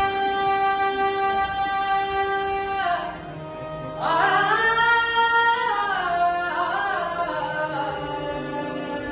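A boy's voice singing an Indian devotional-style melody to harmonium accompaniment. He holds a long steady note, the sound drops back briefly about three seconds in, and at about four seconds the voice returns, sliding up into an ornamented, wavering phrase.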